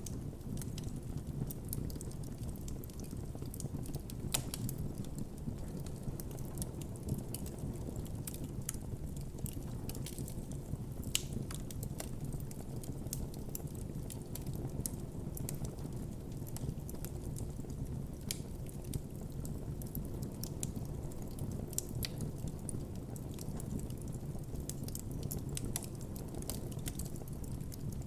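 Campfire burning: a steady low rush of flames under irregular wood crackles and pops, a few louder pops standing out.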